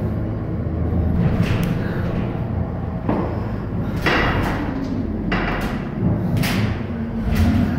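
Low road rumble inside the empty cargo box of a moving 26-foot U-Haul truck, with several loud bangs and thumps as the box jolts.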